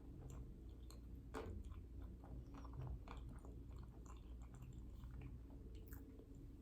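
A person chewing and eating dessert, with a string of small irregular mouth clicks and a sharper click about a second and a half in.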